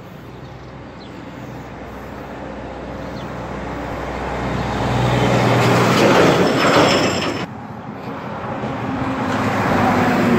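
A heavy truck passing close by: its engine and tyres grow steadily louder, peak about six to seven seconds in, then fall away suddenly. Another vehicle approaches near the end.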